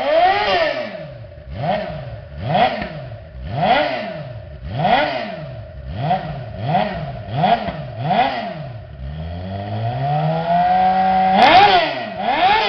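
Suzuki GSX-R750 SRAD inline-four revving through an aftermarket sport slip-on exhaust: about nine quick throttle blips, then a long steady climb in revs held briefly near the top, a sharp blip, and more quick blips near the end.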